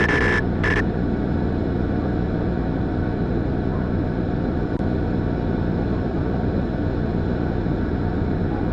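Two short electronic tone bursts, then a steady low-pitched noise that holds without change.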